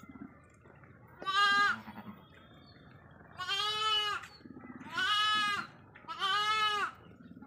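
Sheep bleating: four separate bleats, each lasting most of a second, with short gaps between them.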